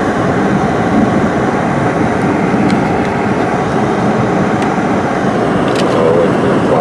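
Steady cabin noise of a car driving on snow-covered roads: the hum of tyres and engine, with the heater fan blowing.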